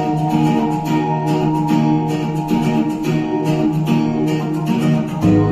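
Karaoke backing track playing the instrumental lead-in of a Hindi film song: strummed acoustic guitar over sustained chords in a steady rhythm, with a low bass coming in and the music getting louder near the end.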